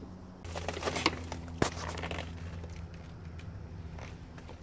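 A screwdriver and metal parts handled at an outdoor air-conditioner unit: a few light knocks and clicks, the sharpest about one and a half seconds in, over a steady low hum.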